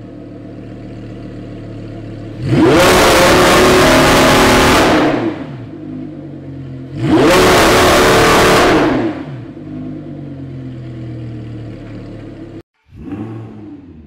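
Audi R8 V10 Plus's 5.2-litre V10 idling and revved twice, each rev climbing quickly, held high for about two seconds, then dropping back to idle. After a brief gap near the end there is one short rev blip.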